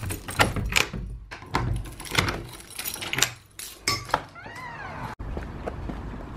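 Keys jangling and clicking in a front-door lock, with the latch and handle clunking as the door is unlocked and opened. About four and a half seconds in comes a short squeal that rises and falls. It is followed by footsteps over a steady outdoor background.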